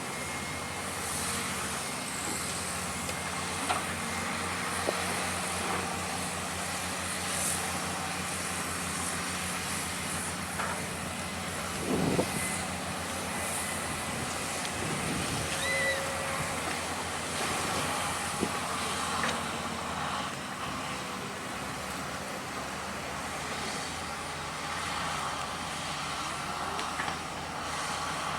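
Diesel engine of heavy construction machinery running steadily, with a few short knocks, the loudest about twelve seconds in.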